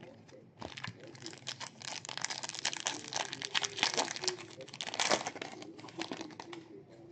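Plastic trading-card pack wrapper crinkling and tearing as it is handled and opened, a dense run of crackles for most of the time, fading near the end.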